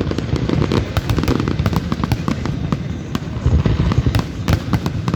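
Fireworks display going off in a dense, rapid run of crackling pops and bangs over a continuous low rumble.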